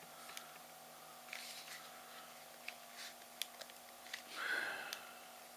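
Faint scattered clicks and light scrapes of hand tools and a laptop battery's plastic case being handled, with a short breathy rush about four and a half seconds in.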